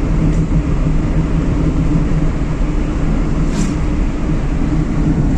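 Steady road and engine noise inside a moving car's cabin, with air rushing past the partly open side window.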